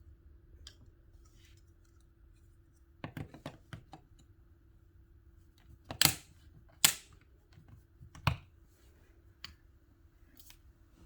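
Scattered clicks, then three sharp knocks about a second apart midway through, from handling the plastic parts and hardware of an in-wall power kit during installation.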